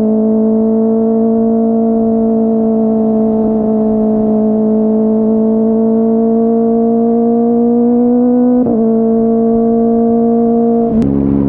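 Kawasaki ZX-25R's 250cc inline-four running at high revs through a Yoshimura R55 slip-on exhaust, a steady high-pitched note that creeps slowly upward. There is a brief dip in pitch about three-quarters of the way through, and near the end the note drops suddenly and falls as the throttle closes.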